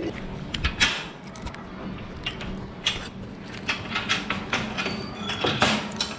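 Keys jingling and a padlock clinking against a metal mesh gate while it is unlocked: a run of irregular metallic clicks and clanks, with a few louder rattles.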